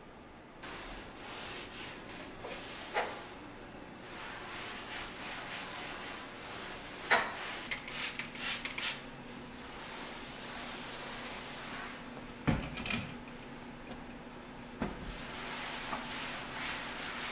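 Hands at work on a marble kitchen countertop: scattered sharp clicks and knocks, the loudest about seven seconds in with a quick run of smaller clicks just after, and a pair a few seconds later, then a cloth wiping over the stone near the end.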